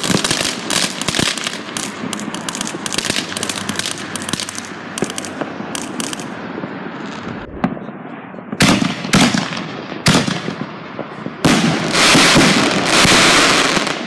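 Consumer fireworks going off: dense rapid crackling for the first several seconds, a few bangs about nine seconds in, then a loud bang and a long crackling hiss from an aerial burst near the end.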